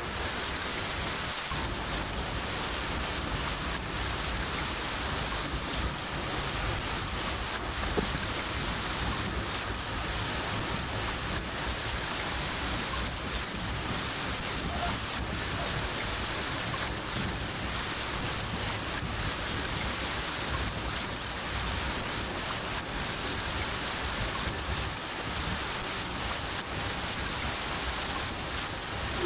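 A cricket chirping in a steady rhythm, about two to three chirps a second, over a continuous hiss of rain.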